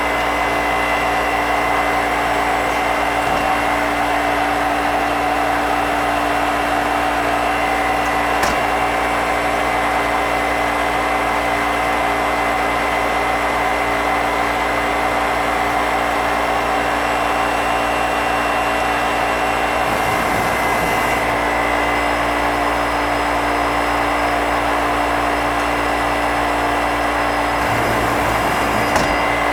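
2008 Nakamura-Tome Super NTX twin-spindle CNC turn-mill machine running under power: a steady whir with a few constant tones. There is a single sharp click about eight seconds in, and the sound shifts briefly twice in the second half.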